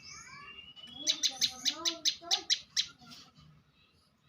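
Prenjak lumut singing: a few rising whistled notes, then a rapid run of about ten sharp, high chip notes at roughly five a second that stops about three seconds in.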